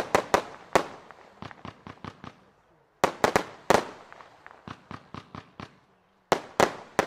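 Consumer firework battery firing a shot about every three seconds. Each shot bursts in a cluster of sharp bangs, followed by a fading run of smaller crackles.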